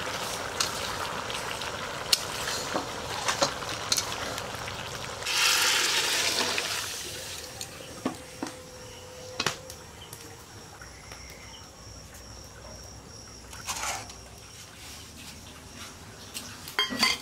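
Small perch and potatoes cooking in spicy gravy in a metal wok, bubbling and sizzling, with scattered clicks against the pan. About five seconds in, a louder hiss lasts about a second and a half, after which the cooking goes quieter.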